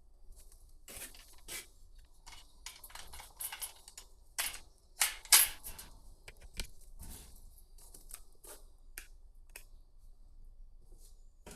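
Irregular sharp clicks, knocks and scrapes, the loudest a pair of clicks about five seconds in.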